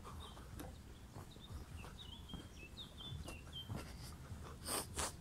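Small birds chirping faintly in short high notes over a low steady outdoor rumble. Near the end come two short, louder swishing sounds a fraction of a second apart.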